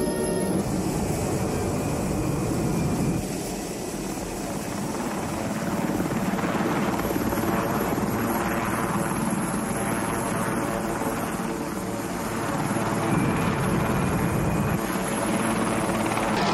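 Large helicopter's rotor and engines running steadily while it flies and hovers, with a dense low rotor beat and turbine noise.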